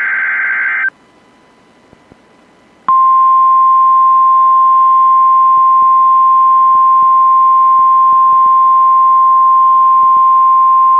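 NOAA Weather Radio test transmission. The last of a SAME/EAS header data burst ends just under a second in, followed by about two seconds of faint radio hiss. Then, about three seconds in, the steady 1050 Hz warning alarm tone comes on: the signal that switches on weather-alert receivers.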